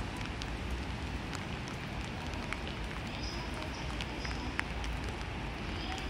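Steady outdoor city background noise with a low rumble, a few faint clicks and brief high tones scattered through it.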